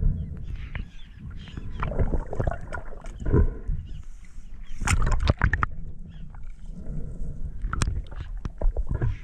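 Muffled underwater water noise on a submerged camera: an uneven low rumble with swelling rushes of moving water and a few sharp clicks.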